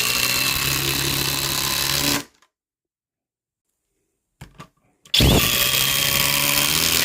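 Impact driver running under load, driving a fastener, with a steady high whine over a low drone. It stops about two seconds in, then after a pause with a couple of faint clicks starts again just past five seconds and keeps running.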